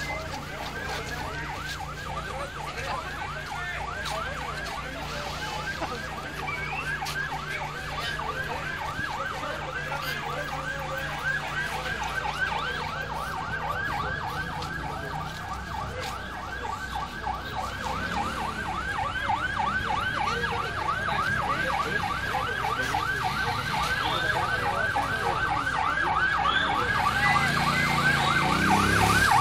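Emergency-vehicle siren on a fast yelp, its pitch sweeping rapidly up and down without a break, growing louder toward the end as it comes closer.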